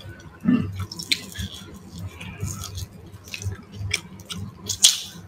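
A person eating a snack out of a plastic cup: chewing and small wet mouth clicks, with scattered sharper clicks, the loudest near the end.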